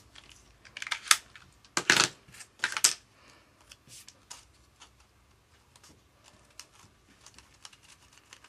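Double-sided 3D foam tape being pulled off and torn: three short, loud noisy bursts in the first three seconds. Faint paper rustles and small taps follow as paper leaves are pressed onto a paper pumpkin.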